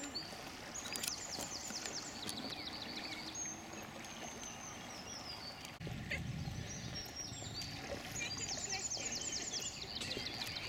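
A songbird singing two phrases of rapid repeated notes that step down in pitch, one about a second in and another near the end. A low rumble of wind on the microphone starts about halfway through.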